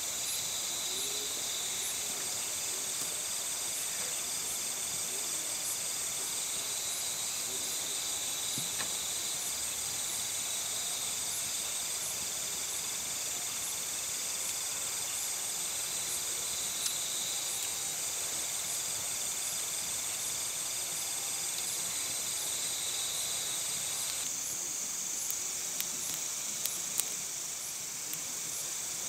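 Steady night chorus of crickets, a dense high trill with a regular pulse about twice a second running through it. A few sharp crackles from the wood campfire come near the end.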